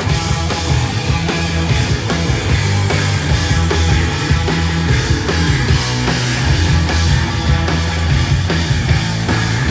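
Live rock band playing a loud instrumental passage between vocal lines: full band with heavy bass and drums, no singing.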